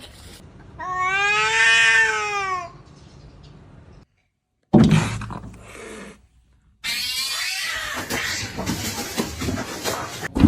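Cats fighting: one long drawn-out yowl about a second in, rising then falling in pitch. After a short break, a loud noisy burst and then a rough, noisy stretch with another yowl near its start.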